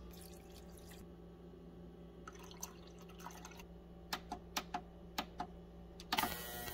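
Control-panel buttons on a LifeBasis ultrasonic cleaner clicked about ten times as the timer is set. About six seconds in, the cleaner switches on with a steady electric hum and a hiss from its water bath.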